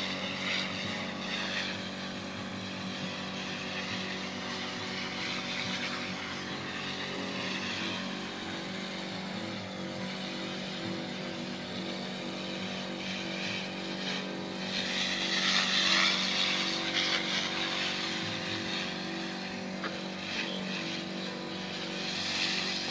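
Motorised sprayer pump running steadily while it sprays acaricide onto brinjal plants, with a hiss of spray from the nozzle that grows louder about two-thirds through.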